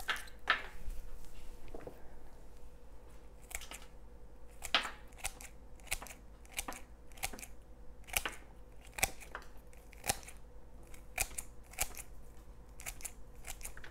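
Hand pruners snipping through ashwagandha roots: a string of short, crisp cuts, irregular, about one or two a second.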